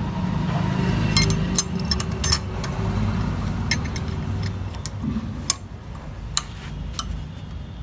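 Scattered light metal clicks and taps as a cut steel horn mounting plate is fitted into place against a motorcycle's frame, over a steady low rumble.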